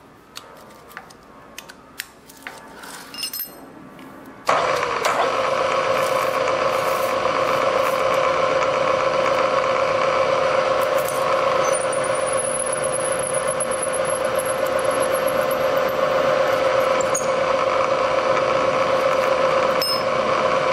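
A milling machine's spindle switches on about four and a half seconds in and runs with a steady, loud whine, with a reamer in the chuck over an MLS head gasket held in a jig. Before that, light clicks of the gasket and jig being handled.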